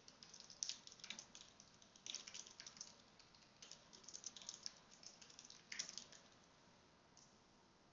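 Faint typing on a computer keyboard: runs of quick key clicks that stop about six seconds in.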